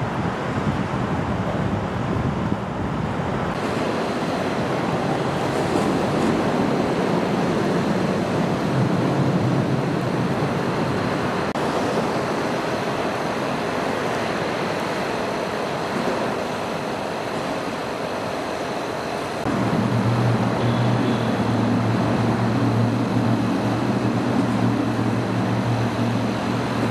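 Steady rushing noise of heavy rain and running floodwater. From about twenty seconds in, the low, even hum of an idling car engine joins it.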